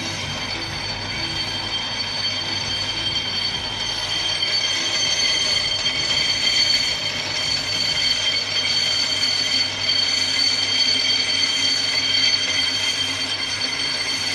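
Brake disc being skimmed on a brake lathe: the cutting tool on the cast-iron disc gives a steady, high-pitched metallic squeal over the machine's running hum. It gets louder about four seconds in.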